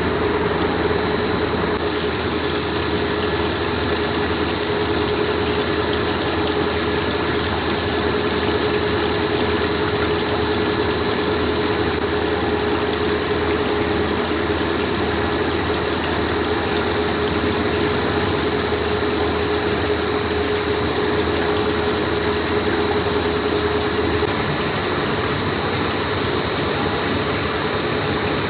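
Plastic pipe factory machinery running steadily: a continuous drone with a constant mid-pitched hum and a high whine.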